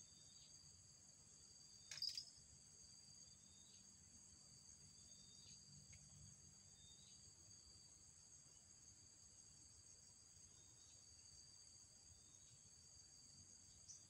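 Faint, steady high-pitched insect chorus in several layers, with soft short chirps repeating every second or two. A brief sharp click sounds about two seconds in.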